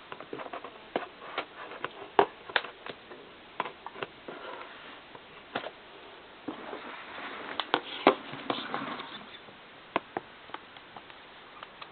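Hands working at the packaging of a laptop box, trying to cut it open: irregular clicks, taps and scratches, with a longer stretch of rustling and scraping a little past the middle.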